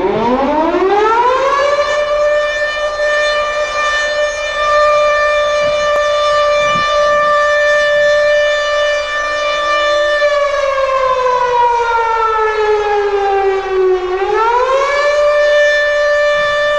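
Civil defence siren winding up over the first second or so and holding a steady wail. About ten seconds in it slowly winds down, then climbs back up to full pitch near the end and holds.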